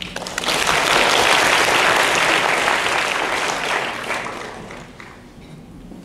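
Audience applauding in a hall. It starts suddenly and dies away after about four seconds.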